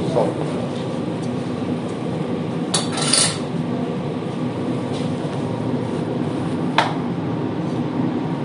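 Steady low hum of kitchen equipment, with a brief hiss or scrape about three seconds in and a single sharp metallic clink near seven seconds, like utensils on a pot.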